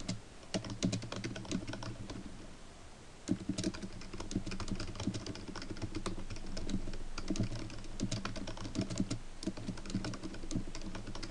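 Typing on a computer keyboard: a fast, uneven run of key clicks with a short lull about two to three seconds in, then steady typing again.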